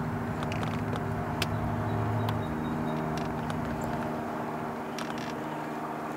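A boat motor running steadily, with a few light clicks over it.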